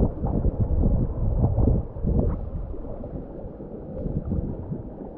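Shallow seawater sloshing and splashing in irregular surges around a sea bass held by the lip and moved back and forth to revive it, with wind rumbling on the microphone. The sloshing is heavier in the first two seconds and eases after.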